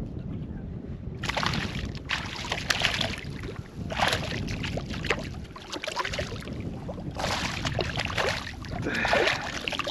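Water splashing and sloshing beside a kayak in four irregular bursts, over a steady low rumble of wind on the microphone.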